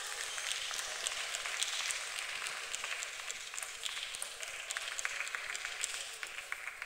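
Spectators applauding: dense scattered clapping that tapers off slightly near the end.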